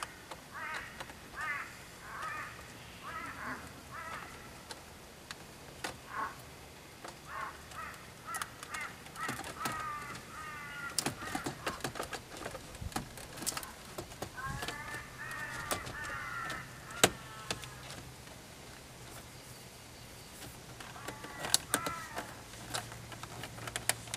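Crows cawing in repeated series of harsh, arching calls, with scattered sharp clicks and taps.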